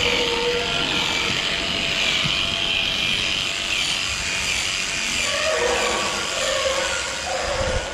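Electric animal clippers buzzing steadily as they cut the long hair of a dairy cow's tail switch.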